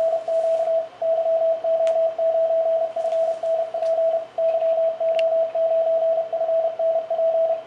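Morse code (CW) from a Flex 5000 ham transceiver: a single steady beep keyed on and off in dots and dashes.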